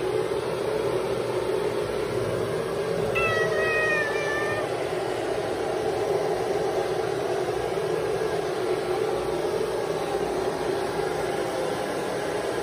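A long-haired Highland Scottish Fold cat gives one drawn-out meow, about a second and a half long and falling slightly in pitch, a few seconds in. A steady whirring noise runs underneath throughout.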